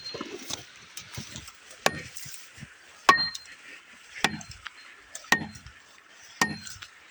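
Five sharp knocks about a second apart, each with a short metallic ring: a steel tool striking frozen spruce wood. A steady high hiss runs underneath.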